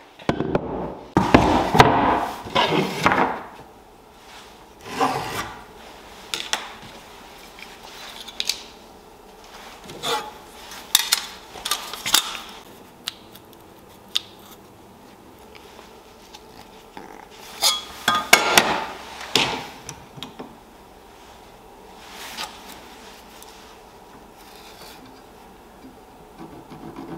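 Wooden strips of a laminated ash-and-walnut bow being handled on a wooden workbench: irregular bursts of wood rubbing, sliding and knocking, with quiet gaps between. The loudest handling comes in the first few seconds and again about 18 seconds in.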